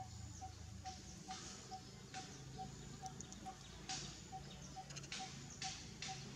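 Outdoor ambience: a soft ticking note repeating evenly a little over twice a second, with scattered short clicks and rustles.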